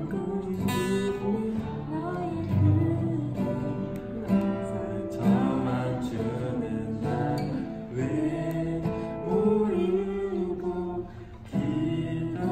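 Acoustic guitar being strummed, with a voice singing along.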